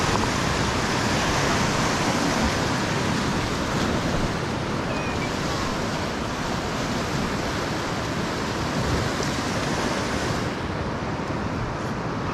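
Steady rush of a river running through rapids, a dense even hiss of whitewater that turns a little duller near the end.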